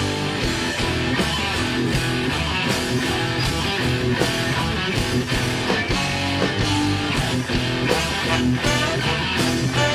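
Ska band playing live: electric guitar and drums with a horn section of saxophones and trombone, a loud, steady full-band sound.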